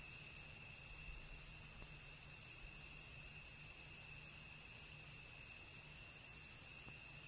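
Steady chorus of night insects: several continuous high-pitched trills at different pitches, one very high and one lower, with a third fainter trill coming and going.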